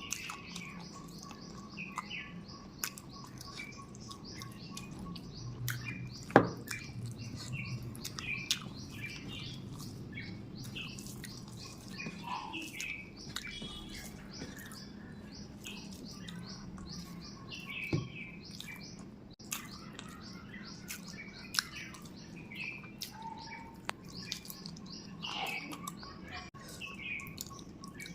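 Birds chirping in short, scattered calls throughout, over small clicks and smacks of someone eating by hand.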